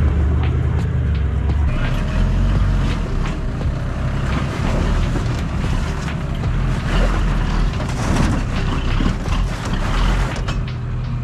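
Toyota LandCruiser 70-series four-wheel drive's engine working at low speed over wet rocks, its note shifting, with scattered knocks from the tyres on rock.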